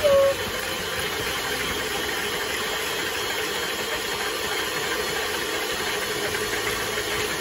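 Electric hand mixer running with a steady hum, its beaters mixing butter and sugars in a bowl.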